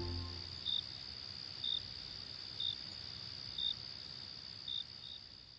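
Faint crickets: a steady high trill with a short, louder chirp about once a second.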